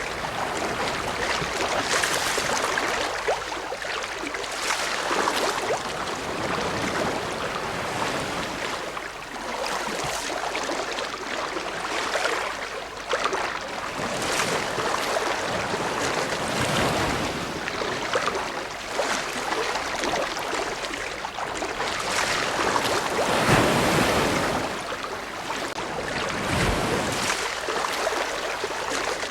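Ocean waves washing onto a shore, a continuous surf with swells rising and falling every few seconds, one stronger surge a little past the middle.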